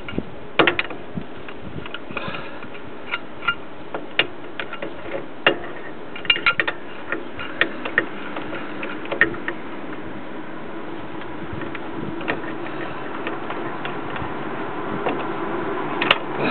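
Irregular metallic clicks and taps from hand tools working on a Jeep Wrangler's Dana 30 front axle during a ball joint replacement, over a steady background noise that grows a little louder in the last few seconds.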